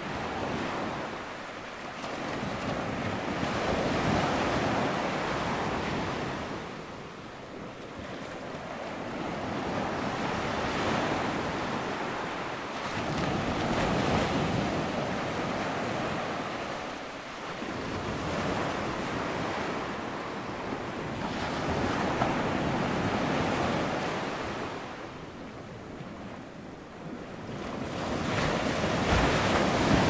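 Ocean surf: waves breaking and washing in as a steady rush that swells and falls back every few seconds.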